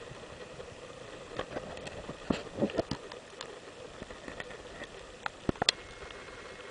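Steady wind and surf hiss on an open beach, with a scatter of sharp clicks and taps from the camera being handled and panned, clustered about two to three seconds in and again near the end.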